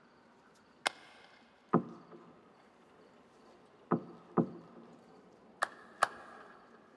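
Sparse knocks and taps from the show's percussion soundtrack, built from recordings of hands knocking on the palace's windows, walls and rain gutters. Six separate hits: some dull and low, others bright with a short metallic or glassy ring, the last two paired.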